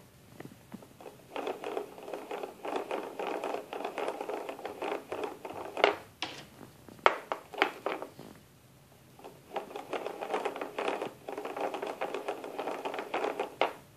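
Plastic gears of a Melissa & Doug toy gear board clicking and rattling against each other as a hand turns the meshed row, in two long runs of rapid clicking. Between the runs come a few sharp single clicks as a gear is pressed onto its peg.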